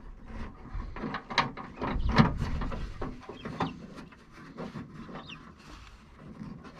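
Fingers working at the small metal retaining clip of the outer door handle inside a 1989 Subaru Brumby's door: scattered light clicks and scrapes from the clip and door internals, the sharpest about two seconds in.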